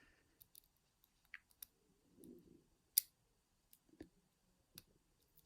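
Faint, scattered small clicks of a lock pick and tension tool working the pin stacks of an ERA euro cylinder lock, with one sharper click about three seconds in.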